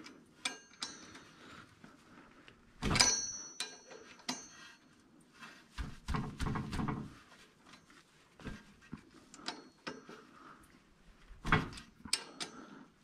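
Metal clinks and knocks of hand work on a flywheel's bolts: bolts and tools tapping against the steel, the loudest clink about three seconds in ringing briefly, with short scraping in between.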